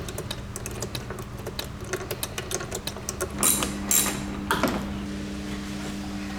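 Hand tools working on car parts: a run of quick metallic clicks, like a ratchet wrench turning bolts. About three and a half seconds in come a few louder rattling bursts, and a steady low hum starts at the same point.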